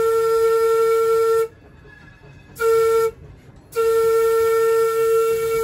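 Trolley horn sounding a steady single-note signal: the end of a long blast, one short blast, then another long blast. The long-short-long pattern is the grade-crossing warning as the car approaches a road crossing.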